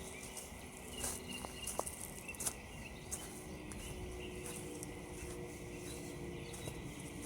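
Footsteps crunching on frost-covered ground, short crisp crackles at walking pace, thinning out after the first few seconds, with faint birdsong.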